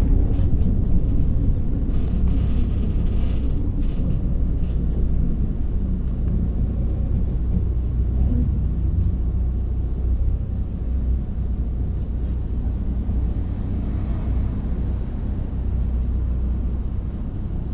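Steady low rumble of a MAZ-105 articulated city bus under way, heard from inside the passenger cabin: diesel engine drone and road noise, with a few faint rattles.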